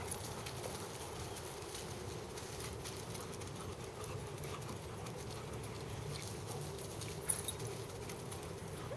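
Two dogs running and chasing on a dirt and grass yard, their paws thudding on the ground, with two sharp clicks about seven seconds in.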